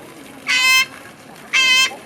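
A duck quacking twice, evenly spaced nasal calls about a second apart.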